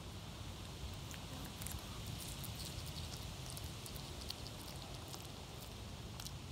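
Chihuahua chewing a bean, with many small irregular crunching and smacking clicks, over a low steady rumble.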